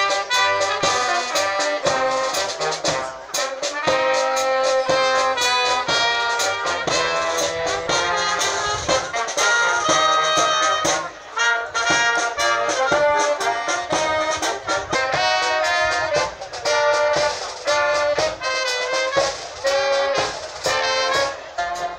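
Brass band music, trumpets and trombones playing a tune.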